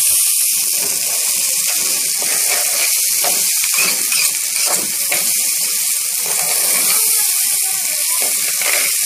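Rice and red lentils sizzling steadily in hot ghee and oil as they are stirred in the pot, being toasted in the fat.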